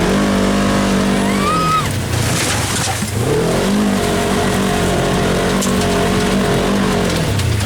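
Polaris RZR side-by-side's engine revving up hard and held at high revs, easing off about two seconds in, then revving up again and held before dropping back near the end, as it powers through a mud hole.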